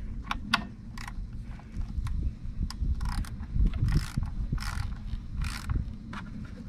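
Hand ratcheting screwdriver clicking in short back-and-forth strokes as it drives a T30 Torx screw.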